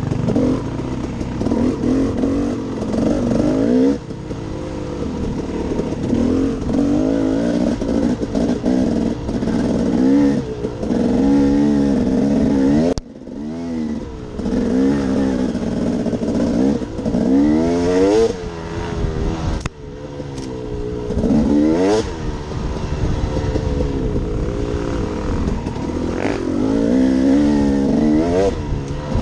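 2015 KTM 250 XC two-stroke dirt bike engine under riding load, its pitch rising and falling over and over as the throttle is worked. The engine drops off briefly twice, about 13 and 20 seconds in.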